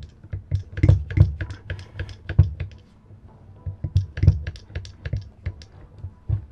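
Hand-pumped hydraulic crimping tool at work crimping a lug onto heavy cable: the pump handle clicks and knocks in irregular strokes, with low thuds, in clusters separated by short pauses.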